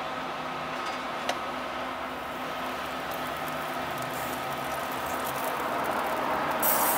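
Steady low hum and hiss of background noise, with a single sharp click about a second in. The hiss turns brighter and louder near the end.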